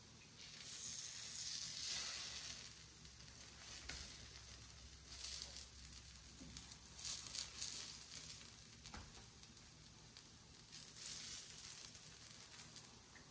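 Buttermilk pancakes sizzling on a hot stovetop griddle as they are turned with a spatula and gone over with a basting brush. The hiss surges louder several times, about a second in, then around the middle and again near the end, with a few light clicks of the utensils.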